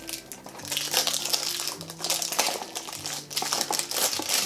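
Plastic packaging crinkling and crackling in irregular bursts as a toy blind box is cut and pulled open by hand.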